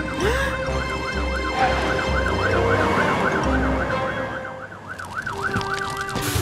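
Cartoon fire truck siren wailing in a quick, repeating up-and-down sweep, stopping near the end. Under it for the first few seconds, the low pulsing rumble of the racing trucks' engines, with light background music.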